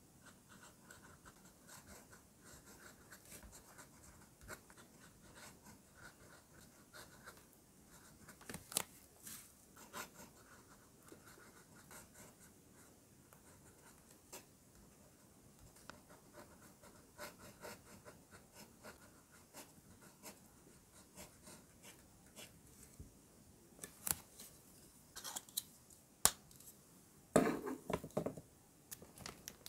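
Faint scratching of a pen tip writing on notebook paper. A few sharp clicks and a short, louder handling noise near the end.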